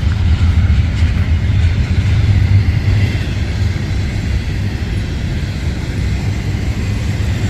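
Freight train rolling past close by: a steady, loud low rumble of locomotive and wheels on rail that slowly gets quieter in the second half.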